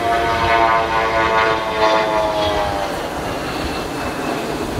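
Be-200 amphibious aircraft's twin turbofan engines passing by, their tone falling slowly in pitch and fading out about three seconds in, over a rumble of wind.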